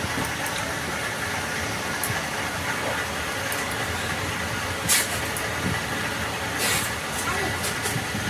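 Steady workshop machinery noise with a few sharp metallic clinks as small brake cylinder pistons and parts are handled on the bench, the clearest about five seconds in and another just before seven seconds.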